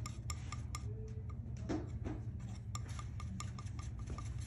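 Metal palette knife mixing oil paint on a wooden palette, scraping softly with many light, irregular clicks and taps of the blade as yellow is worked into the mixture. A low steady hum runs underneath.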